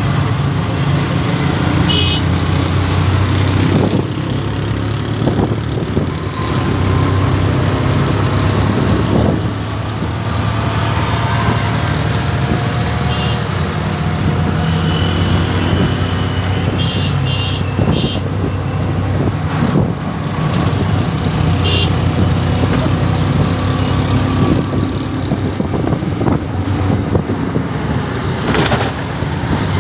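Auto-rickshaw engine running steadily as it drives along a road, heard from inside the open cabin, with road and traffic noise. A few short high-pitched beeps sound through it.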